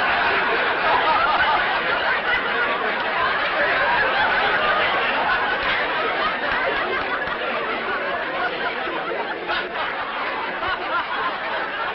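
Studio audience laughing: a long wave of laughter that breaks out all at once and slowly dies down, heard through a narrow-band old television recording.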